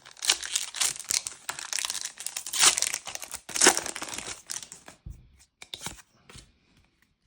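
A Disney Lorcana booster pack's wrapper crinkling and tearing as it is ripped open, with two sharp loud rips about two and a half and three and a half seconds in. This is followed by a few faint clicks.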